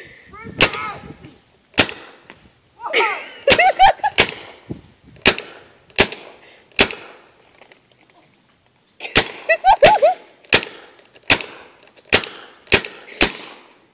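Paintball marker firing over a dozen sharp pops in irregular runs, with a pause of about two seconds in the middle. A person's voice cries out among the shots, around three seconds in and again around nine seconds.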